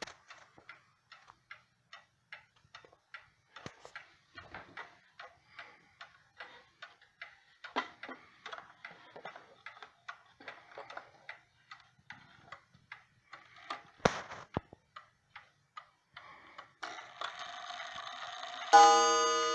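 Ansonia Trieste mantel clock's movement ticking steadily, freshly cleaned, oiled and adjusted. There is a sharp click about 14 seconds in. Near the end a brief whirring starts and the clock strikes its gong once, which rings on.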